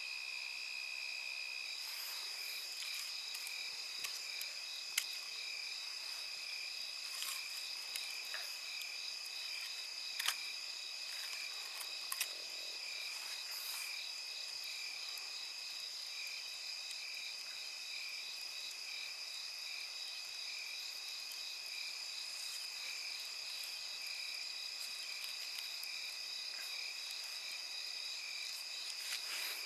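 Crickets or other night insects chirping in a steady, high-pitched, pulsing chorus. A wood campfire adds a few sharp pops and crackles.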